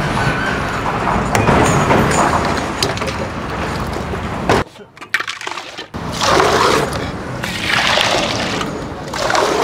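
Water or soda poured from a steel jug into glasses, in several splashing pours in the second half. The first half is a steady dense noise that stops suddenly.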